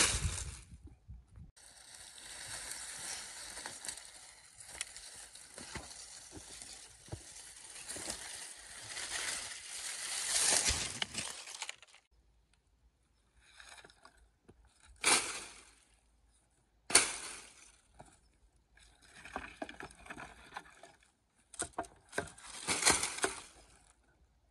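Dry cane stalks and leaves rustling and crackling as they are heaped over a stone-lined pit for about ten seconds, then a few short separate rustles as more stalks and sticks are dropped on.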